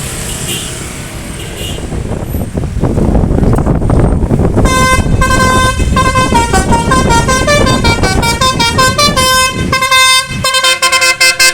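Bus engine noise building as it draws near, then, about five seconds in, a Basuri 'telolet' multi-tone horn plays a tune: bright horn notes stepping up and down several times a second, breaking into short blasts near the end.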